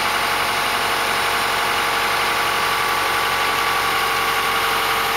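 Backhoe engine running steadily at idle, an even, unbroken drone.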